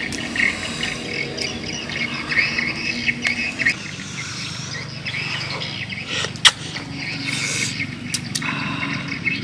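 Birds chirping busily over the cracking of crispy fried crab shells being broken apart by hand and eaten, with one sharp crack about six and a half seconds in.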